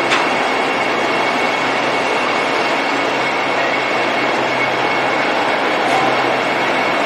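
Vande Bharat Metro electric train running at a platform: a steady, loud noise with a thin high whine and a low hum, and a sharp click just after the start.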